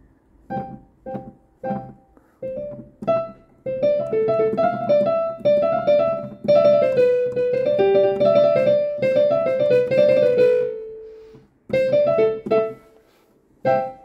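Casio Privia digital piano played by hand in its piano voice: a few separate notes at first, then a quicker melody with chords that runs for several seconds and dies away, followed after a short pause by a few more notes.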